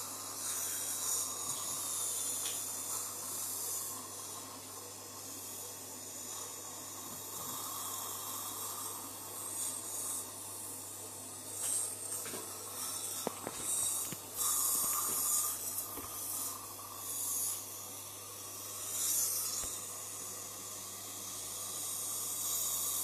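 Dental suction hissing steadily as it draws air from the patient's mouth, with several louder, irregular surges in the second half as the tip picks up fluid.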